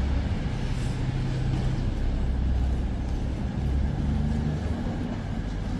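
A train at a station platform, giving a steady low rumble.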